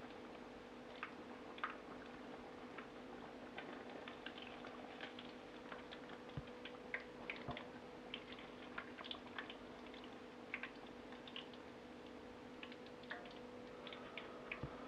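Fish cakes deep-frying in a pot of hot oil, giving faint, irregular crackles and pops, over a steady low hum.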